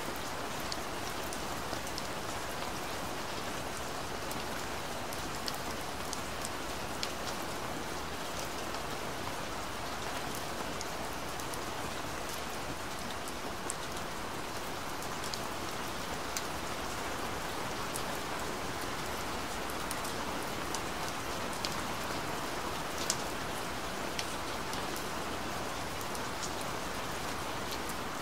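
Steady rain falling, an even hiss with scattered sharper drop ticks; one tick stands out louder near the end.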